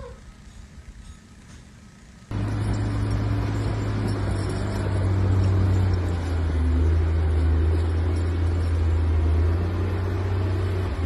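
A motor vehicle's engine running steadily with a low hum, starting abruptly about two seconds in after a quieter stretch.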